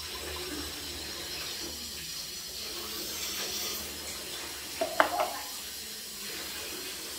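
Water running steadily from a tap into a sink, with a couple of short knocks about five seconds in.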